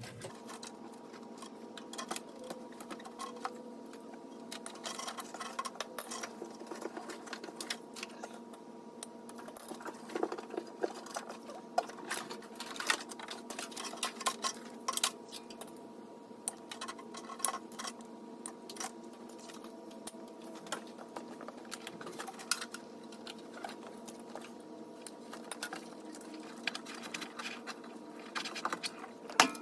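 Dense, irregular clicking and rattling of tools and parts being handled, over a steady hum.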